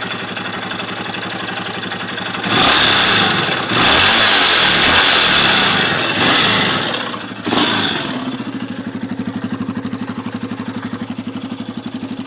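Yamaha Raptor 350 quad's single-cylinder four-stroke engine idling, then revved hard several times from about two and a half seconds in, before dropping back to an idle that pulses in an even rhythm. The owner calls the noise it makes strange.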